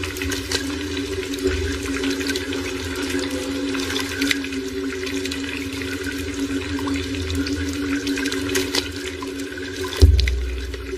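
Steady rush of running water under a sustained low drone. About ten seconds in a deep boom hits, the loudest moment, and fades away.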